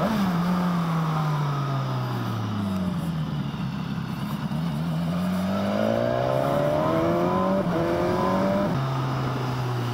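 BMW S1000XR's inline-four engine on the move. It slows for about four seconds, then pulls away again with two quick upshifts near the end, over a steady rush of wind and road noise.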